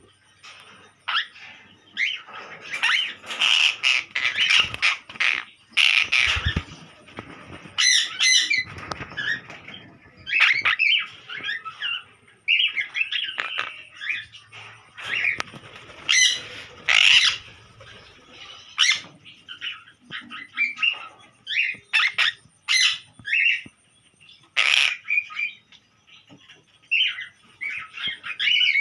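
Small parrots in a colony aviary squawking and screeching over and over, with many short, harsh calls overlapping at irregular intervals.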